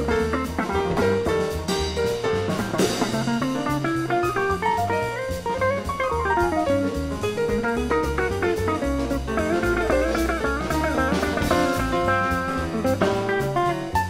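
Small jazz group playing: electric guitar running through rising and falling melodic lines over a stepping bass line and a drum kit with cymbals.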